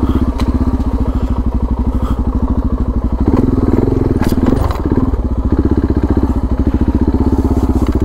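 Suzuki DR650's single-cylinder four-stroke engine running at low road speed, pulling harder from about three seconds in. A few short sharp knocks cut through it.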